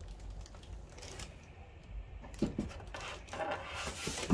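Subwoofer in a clear plastic bag being lifted out of its cardboard box: the plastic crinkles and rustles, with a couple of light knocks.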